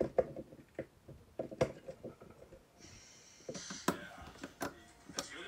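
Scattered light clicks and knocks from a plastic toy train being handled on a tabletop, with a short hissy rustle about three seconds in.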